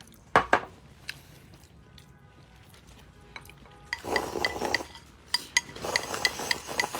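Eating utensils clinking and scraping against a bowl: two sharp knocks just under a second in, then from about halfway a quick run of ringing clinks, several a second.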